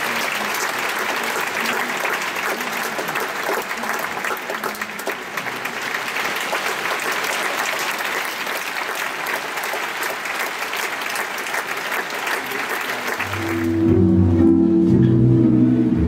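Theatre audience applauding, a dense, even clapping that cuts off abruptly about thirteen seconds in, when music with low, held notes begins.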